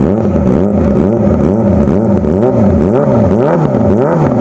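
Kawasaki ZX-25R inline-four with a 3 Tech Racing Evolution aftermarket exhaust, revved in quick repeated throttle blips about twice a second, the pitch rising and falling with each. The note is bassy rather than the stock bike's high, bee-like buzz.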